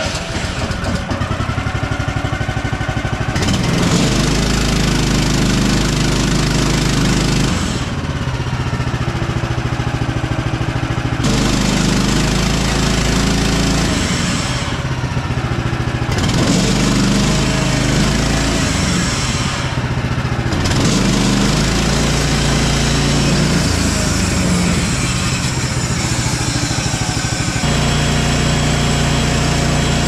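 Woodland Mills HM130MAX bandsaw mill running under power as its blade cuts a large fir log, a steady engine sound whose note shifts several times. The mill is dragging like a car with the emergency brake half on, a sign that something is wrong with it.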